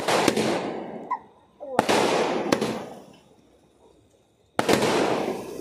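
Aerial 'paradise' firework shots going off one after another: a bang right at the start, another about two seconds in and a third near the end. Each bang fades away over a second or so.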